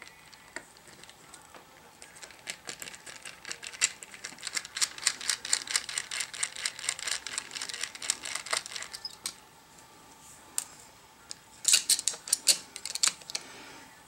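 Light metal clicking and tapping of small hard-drive parts being worked loose by hand: a rapid run of small clicks for several seconds, then a few louder clicks near the end.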